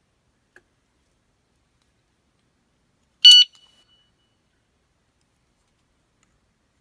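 Komine alarm disc lock giving a single short, high beep a little over three seconds in, after a faint click near the start.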